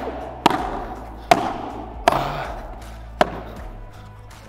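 Padel rally: four sharp pops of the ball off rackets and court, about a second apart and slowing near the end, each trailing a short echo under the covered court's roof.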